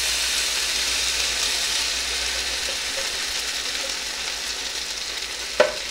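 Coconut milk poured into a hot frying pan of fried onions and peppers, sizzling steadily and slowly dying down as the pan cools. A single sharp knock near the end.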